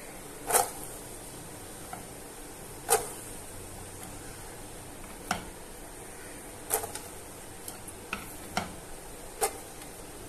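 Diced carrots being added to a metal cooking pot: about eight sharp clinks and knocks against the pot, irregularly spaced, the loudest two in the first three seconds.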